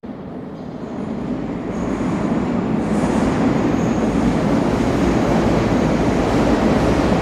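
Train running on the rails, its rumble building over the first two seconds and then holding steady, with a faint high squeal now and then.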